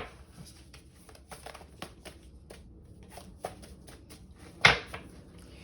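Tarot cards being shuffled and handled: a run of light card clicks and flicks, with two sharper snaps, one at the start and one near the end.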